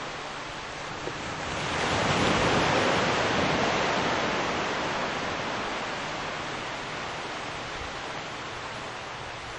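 A steady rushing outdoor noise that swells about two seconds in and then slowly fades over the next several seconds.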